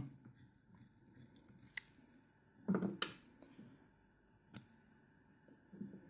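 Small fly-tying scissors snipping tying thread: a few faint, sharp clicks, the loudest pair about three seconds in.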